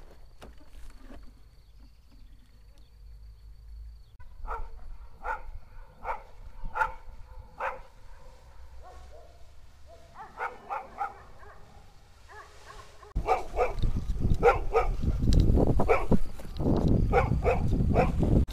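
A dog barking repeatedly, in runs of short barks about a second apart. About two thirds of the way in, a loud low rumble of wind and handling on the microphone starts suddenly and covers the rest, with the barking going on over it.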